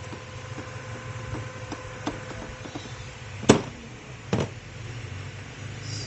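Small ticks of hand tool work on a battery hold-down strap in a plastic kids' ride-on car body, with two sharp knocks about three and a half and four and a half seconds in, the first the louder, over a steady low hum.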